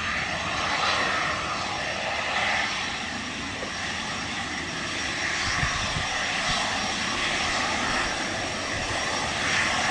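Twin rear-mounted turbofan engines of a business jet running at low power as it taxis: a steady jet rush.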